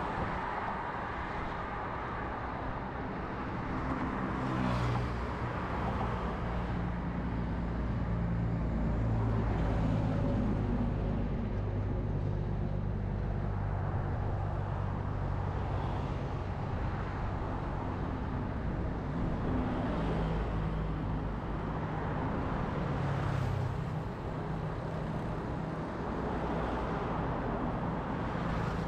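Steady road traffic of cars and pickup trucks driving past: engine hum and tyre noise that swell as each vehicle goes by and then fade.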